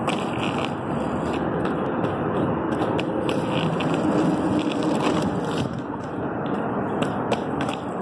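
Skate wheels rolling over rough asphalt and concrete: a steady gritty rolling noise with scattered sharp clicks.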